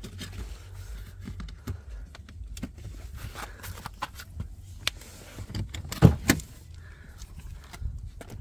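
Handling noises inside a car's open driver's door, likely from reaching for the hood release: scattered clicks, rustles and knocks. A loud double thunk comes about six seconds in.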